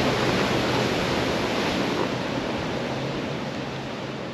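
Ocean surf washing steadily, slowly fading out.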